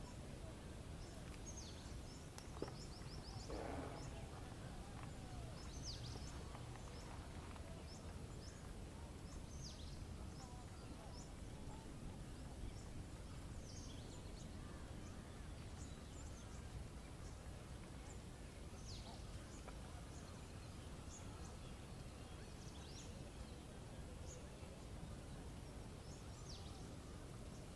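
Nature soundscape: songbirds give short, high chirps every few seconds over a steady low background rumble, with one louder, lower-pitched call lasting about a second near the start.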